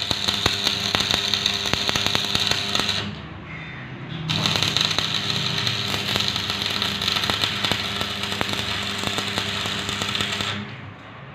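Stick (shielded metal arc) welding on square steel tubing: the arc crackles and sizzles for about three seconds, breaks off briefly, then strikes again and burns steadily for about six seconds before stopping near the end.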